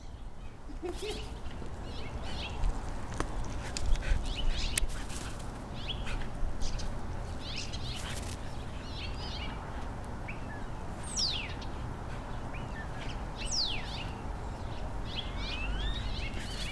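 Birds chirping now and then, with two quick falling whistled calls a little past the middle, over a steady low background rumble. Soft scuffles and thumps come from a Yorkshire terrier puppy and a larger dog play-wrestling on grass.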